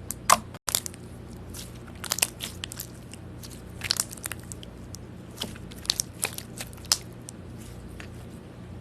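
Slime being pressed and squeezed by hand, giving scattered sharp crackling pops in small clusters, with a faint steady low hum underneath.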